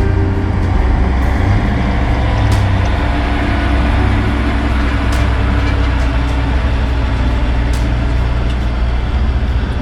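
A truck engine running, a steady low rumble.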